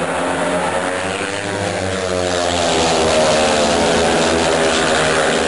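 Speedway bikes' 500 cc single-cylinder methanol engines racing flat out. The engine note rises and grows louder about halfway through as the riders pass close by.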